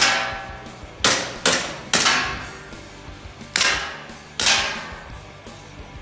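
Gas blowback gel blaster pistol firing six shots at an uneven pace in rapid strings, each a sharp crack with a ringing, echoing decay.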